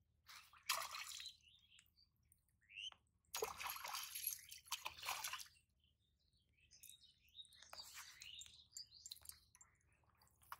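Water splashing as a small hooked fish is pulled out of a pond: a short splash about a second in, then a longer, louder bout of splashing around the four-second mark. Lighter scattered rustling and ticks follow as the catch is handled.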